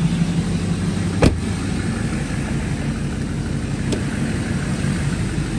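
Chevrolet Silverado pickup's engine idling steadily, with a truck door shutting about a second in and a fainter latch click near four seconds as a door handle is worked.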